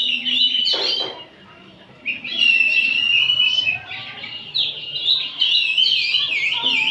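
Several Oriental magpie-robins singing together: loud, varied whistled phrases that sweep up and down in pitch, with a short pause a little over a second in before the song resumes.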